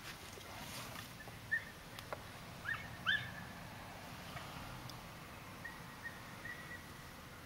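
A dog giving a few short, high-pitched whining cries, then a longer thin whine near the end.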